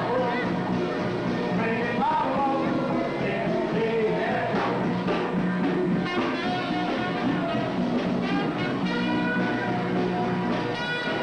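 Background music played by a band.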